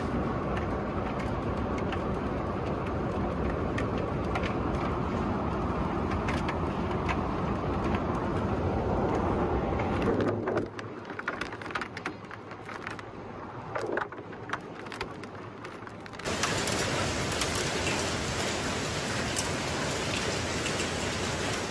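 Hail and rain pelting the ground and nearby surfaces: a dense rushing noise sprinkled with many sharp hailstone hits. It drops off suddenly about ten seconds in, leaving sparser hits, and comes back loud about sixteen seconds in.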